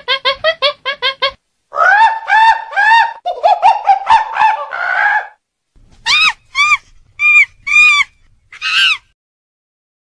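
Macaque calling: runs of short pitched calls that rise and fall, then a few higher, shriller separate calls in the second half.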